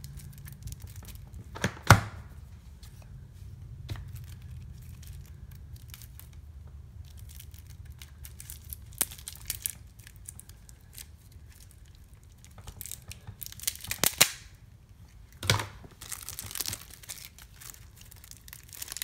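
Plastic wrapping on a deck of game cards being picked at and torn open: scattered sharp crackles and snaps that get busier near the end.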